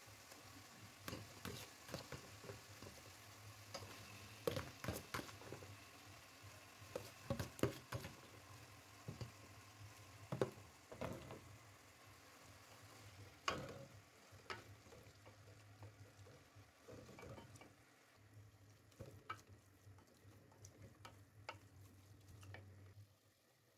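Wooden spoon stirring cooked cowpea leaves into frying tomatoes in an aluminium pot, with scattered knocks and scrapes against the pot over a faint sizzle. The knocks come thickly at first and thin out in the last several seconds; a low steady hum runs underneath.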